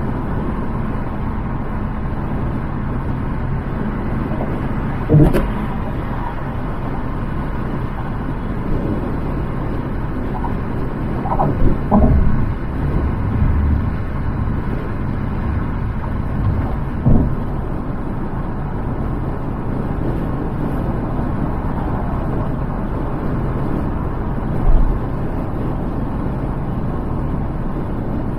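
Steady road and wind noise of a car driving at freeway speed, with a handful of short thumps scattered through it.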